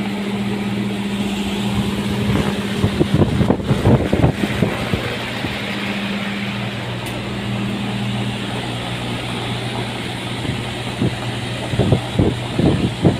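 A machine running steadily with a low, even hum. Irregular knocks and clatter come over it from about two to four seconds in, and again near the end.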